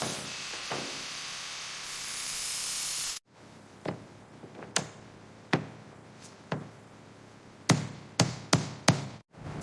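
A steady hiss of workshop noise for about three seconds, then after a sudden cut, about eight sharp knocks or taps, spaced unevenly and coming quicker near the end.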